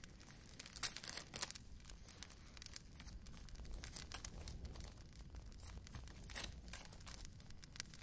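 Paper and packaging being crinkled and torn by hand in short irregular bursts, loudest about a second in and again past six seconds.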